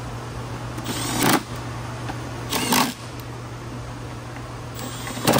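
Cordless impact driver running a timing belt cover bolt into a Subaru EJ25 engine: two short whirs that rise in pitch as the motor spins up, about a second in and near three seconds, then just before the end a run of rapid hammering impacts as the bolt seats.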